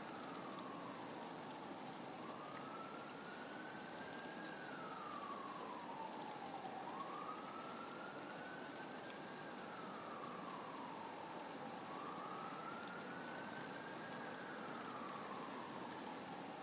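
An emergency-vehicle siren wailing, faint, its pitch rising and falling slowly about once every five seconds.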